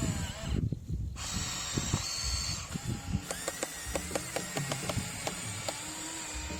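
Small electric motors and gearing of an RC excavator running as it works, with low knocks near the start and a run of sharp, irregular clicks through the second half.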